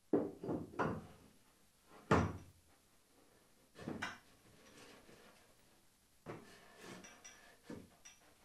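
Hollow knocks and clunks of a large RC jet's composite rudder being worked onto its tube and steeply angled locating pin in the fuselage. There are several quick knocks in the first second, the loudest about two seconds in, and more scattered through the rest.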